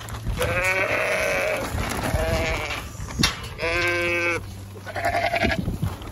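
Ewes bleating: four separate calls, the first the longest, as the flock crowds around a feed bag. Light rustling and handling noise runs underneath.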